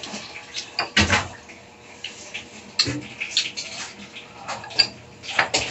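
Eating at the table: a metal spoon clinking against a ceramic bowl of dipping sauce and crisp bites of unripe green mango, heard as a few short separate clicks and crunches.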